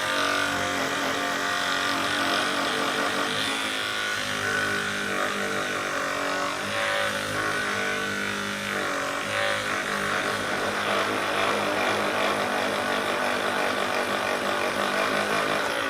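Small electric motor running steadily with a buzz, its pitch shifting for a couple of seconds around the middle: a powered chiropractic device at work on the patient's back.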